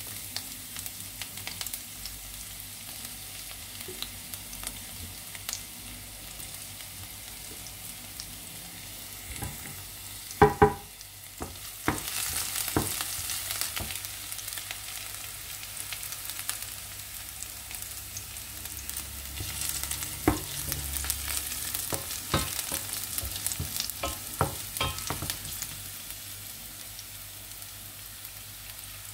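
Chopped garlic sizzling in oil in a stainless steel frying pan, stirred with a wooden spoon, with scattered clicks of the spoon against the pan. About ten seconds in come two sharp, ringing knocks on the pan, and from about twelve seconds on the sizzle is louder.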